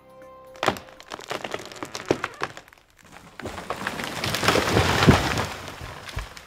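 A tree falling: a run of sharp wood cracks and snaps, then a swelling crash of branches that peaks about five seconds in and dies away.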